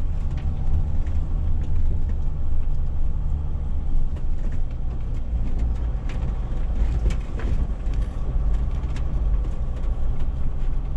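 A vehicle driving slowly along a gravel and dirt track, heard from inside the cab: a steady low engine and road rumble with scattered small clicks and rattles.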